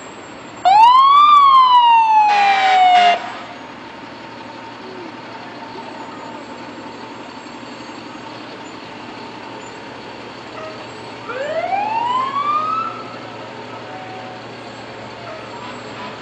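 Fire engine siren sounded in short bursts: a quick rise and slower fall about half a second in, with short horn blasts over its tail. A second rising siren sweep comes around eleven seconds in and cuts off near its top. Truck engines and street noise run steadily underneath.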